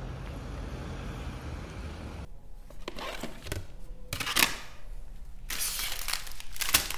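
Steady street background noise, then clear acrylic rhinestone organizer boxes being handled: plastic lids lifted and set down, and small cases picked up, in a series of sharp clicks and rattles about once a second.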